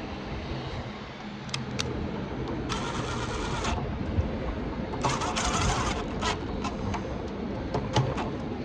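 Small metal lock parts clicking and being handled during reassembly of an exit device trim, with two scraping, hissy bursts of about a second each.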